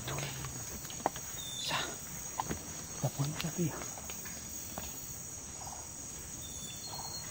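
Steady high-pitched drone of a rainforest insect chorus, with scattered crackles and rustles of footsteps moving through leaf litter and undergrowth.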